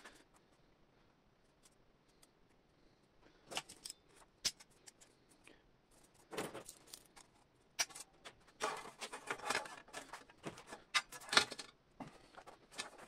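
Galvanized sheet-metal strip being handled against a steel beam, starting about three and a half seconds in: irregular scraping and rattling with sharp metallic clicks as it is bent and locking C-clamp pliers are set on it.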